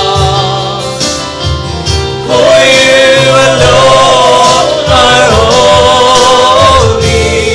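Gospel praise-and-worship song, with singers over a band; the voices come in strongly about two seconds in and carry on singing.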